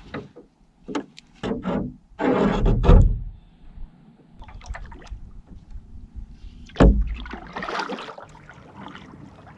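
Camping gear being handled and packed: a run of clicks and knocks with rustling, and two heavier thumps about three and seven seconds in.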